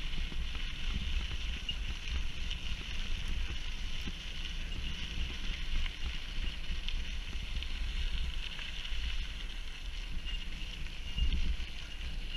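Steady low wind noise on a bike-mounted camera's microphone while a mountain bike rolls along a gravel path, with small tyre and gravel ticks over it.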